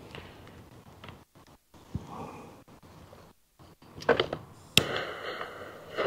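A few sharp clicks and a sharp strike, then about a second of hissing: a bag of instant-lighting barbecue charcoal being set alight.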